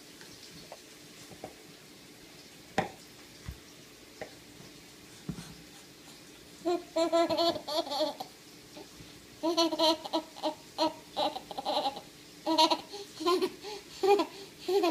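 A toddler babbling and laughing in short high-pitched bursts, starting about seven seconds in, after a few faint clicks and knocks.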